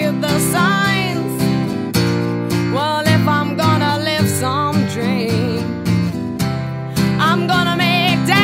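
Music: a song with strummed acoustic guitar and a wavering, sliding lead melody over it.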